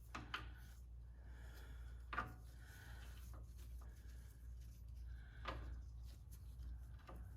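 A few sharp metallic clicks and knocks, spread a couple of seconds apart, as parts of a Spartan ratcheting locker are worked inside a Chrysler 8.25 differential carrier, over a steady low hum.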